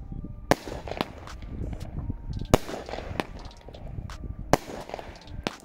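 Consumer firework battery firing shot after shot: a loud sharp bang every second or so, with lighter crackling between the bangs.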